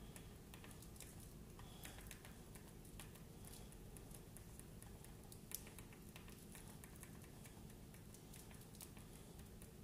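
Faint, irregular clicks of remote-control buttons being pressed over and over to pick letters on an on-screen keyboard, with one sharper click about five and a half seconds in.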